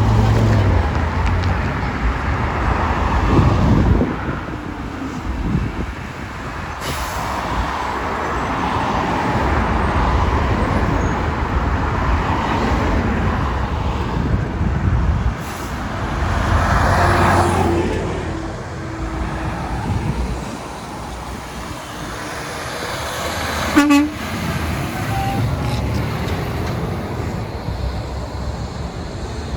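Garbage truck diesel engines running and moving, with a short horn toot about three-quarters of the way through, which is the loudest moment.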